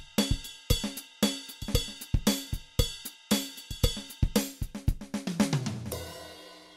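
Background music: a drum kit playing a steady beat with hi-hat, snare and bass drum, ending about five seconds in with a run of hits falling in pitch and a long ringing fade.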